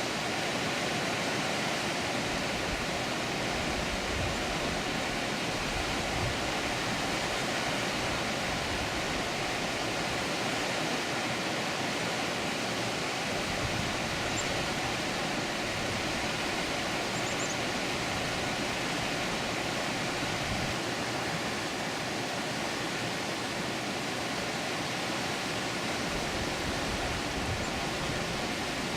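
Water pouring over a dam, a steady even rushing.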